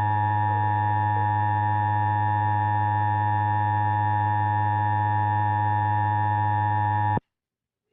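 Emergency Alert System attention signal: a steady two-tone alarm with a low hum beneath it, which cuts off suddenly near the end.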